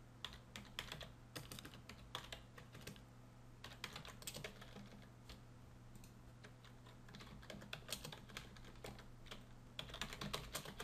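Faint computer keyboard typing: irregular runs of keystrokes with short pauses between them, over a low steady hum.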